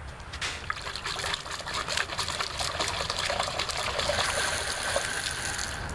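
Water splashing and trickling as a hand dips into a cut two-liter bottle drinking cup and water spills over its rim, over the hiss of a toilet fill valve spraying water into the bucket as the float valve refills it. The hiss grows brighter about four seconds in.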